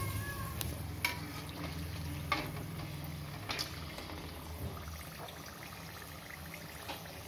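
Hot oil sizzling in a steel kadhai as a stuffed halwa poori deep-fries, over a low steady hum. Three light clicks of a slotted steel spoon against the pan in the first few seconds.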